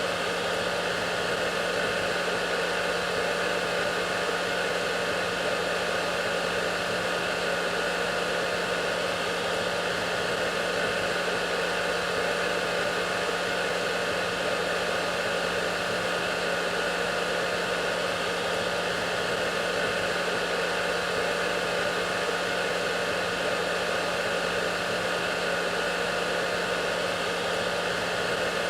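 Hair dryer running steadily: an even rushing noise of blown air over a constant motor hum, unchanging throughout.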